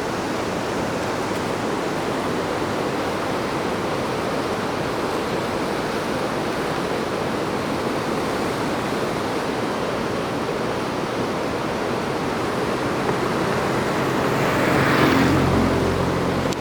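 Suenga waterfall's falling water, a steady rushing noise that swells louder briefly near the end.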